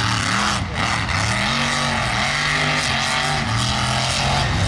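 Mud truck engines revving hard, their pitch rising and falling several times over a steady rushing noise.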